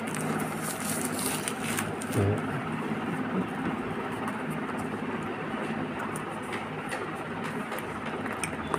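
Clear plastic wrap crinkling as it is pulled off a phone box, with a few crackles in the first couple of seconds. A steady background hum runs underneath.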